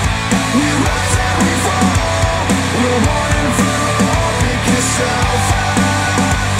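Rock song with guitar, played through a pair of Focal Chora 806 bookshelf speakers driven by an NAD C700 integrated amplifier and picked up by microphones in the room.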